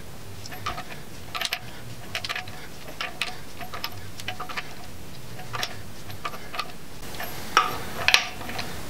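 Hand ratchet clicking in short runs as its handle is swung back and forth, running a long temporary bolt into the crankshaft to draw the harmonic balancer on. A couple of sharper clacks near the end.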